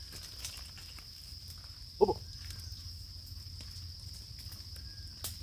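A single short call from a farm animal about two seconds in, over a steady high-pitched drone and a faint low rumble.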